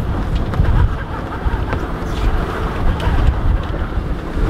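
Wind buffeting the microphone in a steady low rumble, with a few faint knocks and rustles as the gaff and wingsail are lowered.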